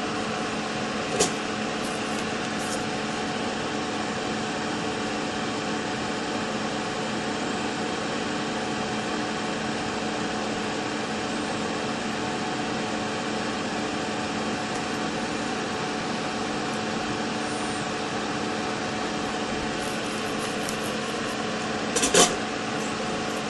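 Steady mechanical hum with a few held tones in it. A small click comes about a second in, and a sharper tap near the end as the circuit board is set down on the bench.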